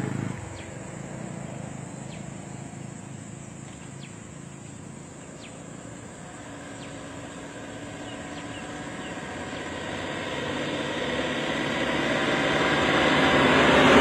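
Road vehicles passing on a rural road: a louder engine sound cuts off just after the start, then the hum of approaching vehicles swells steadily over the last several seconds. Faint insect buzz and a few short high chirps sit underneath.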